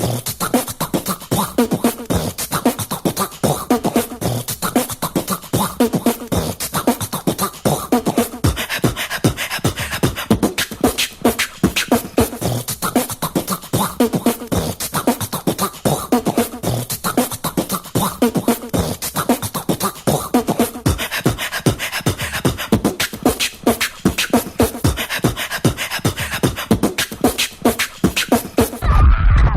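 Human beatboxing: a fast, steady vocal rhythm of mouth-made kick, snare and hi-hat sounds with a hummed bass line underneath, ending in a loud low bass boom near the end.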